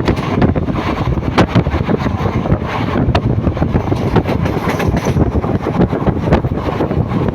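A moving train running steadily: a constant loud low noise with many irregular sharp clicks and rattles over it.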